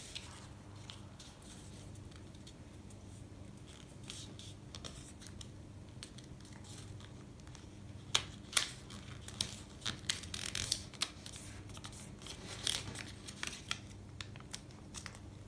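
A sheet of paper being folded and creased by hand, making scattered crisp crinkles and rustles. They are sparse at first and come thick and fast from about halfway on.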